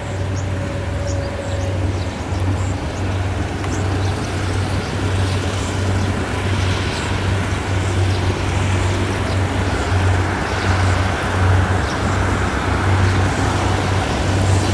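Rice combine harvesters working a paddy field: a steady, low diesel drone from several machines at once, getting a little louder in the second half.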